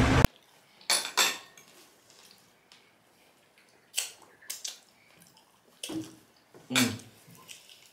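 A few short, scattered clinks of cutlery against a plate while eating. They follow a loud rush of noise that cuts off abruptly at the very start.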